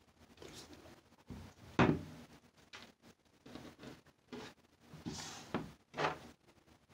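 A hot process soap loaf being unmolded from a silicone loaf mold: silicone rubbing and peeling off the soap, with several soft knocks as the mold and loaf are handled and set down, the loudest about two seconds in.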